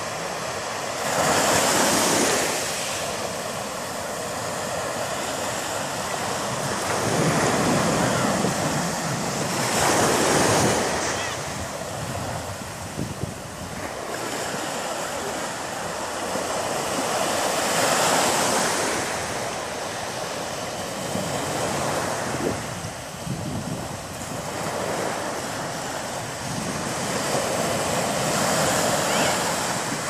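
Surf breaking and washing up a sandy beach, the noise swelling and fading as each wave comes in, every few seconds.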